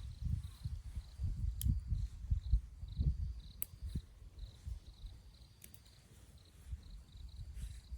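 Outdoor ambience: a faint, high chirp repeats about twice a second, like an insect, over low rumbling bumps and a few sharp clicks.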